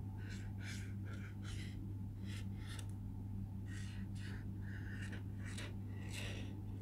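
Black marker scratching across paper in a dozen or so short strokes as scalloped cloud bumps are drawn, over a steady low electrical hum.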